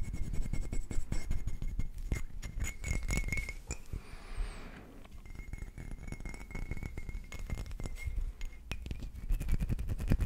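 Fingers tapping quickly on a small glass bottle of liquid held right at the microphone, a dense run of light glassy clicks. About four seconds in the taps pause for a brief soft hiss, then resume.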